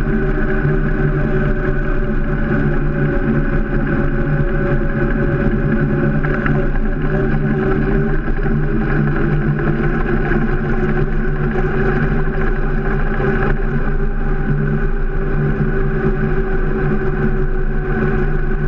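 Steady rumble of a BMX's tyres rolling on asphalt, with wind buffeting the GoPro's microphone, which is mounted by the front wheel. It is loud and unbroken, with a constant drone and no pauses.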